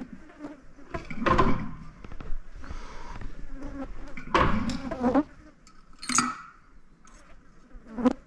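Flies buzzing close to the microphone, broken by several short bursts of rustling noise, the loudest about a second in and again about four and a half seconds in.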